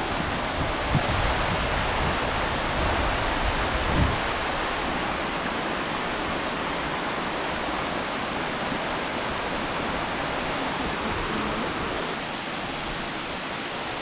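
Waterfall pouring close by: a steady, even rush of falling water. A few low thumps come in the first four seconds.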